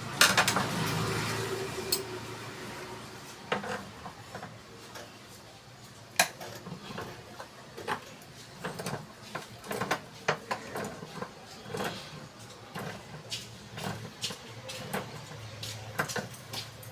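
Metal parts of a gas stove burner clinking and knocking as it is taken apart with a screwdriver and box spanner, with a noisy rush for about the first two seconds, then irregular sharp clicks throughout.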